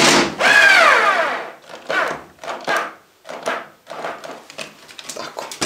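Cordless drill driving a screw into a wooden board, its motor whine falling in pitch as the screw goes in and tightens. After that, a run of short knocks and clicks of wood and tool.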